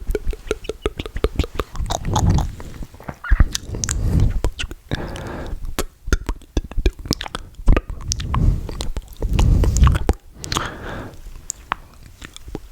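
ASMR mouth sounds made right at the microphone: quick wet clicks and smacks of the lips and tongue, coming irregularly, broken by several fuller, deeper swells of about a second each.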